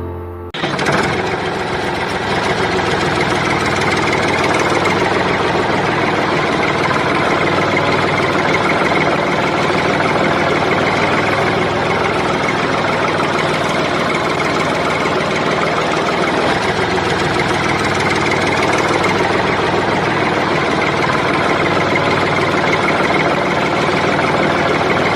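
A steady, rough engine running sound, like a heavy machine's engine idling. It starts suddenly about half a second in and holds at one level throughout.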